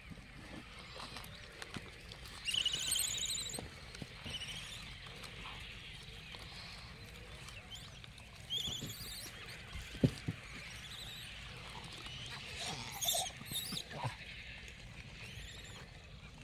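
Gray langur monkeys squealing in short, high-pitched, wavering bouts: a longer one about two and a half seconds in, a brief one near nine seconds and several more around thirteen seconds. A single sharp click comes near ten seconds.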